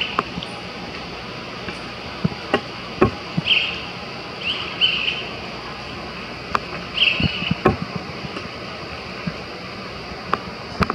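Steady outdoor background noise with a few short, high-pitched chirp-like sounds and scattered sharp knocks.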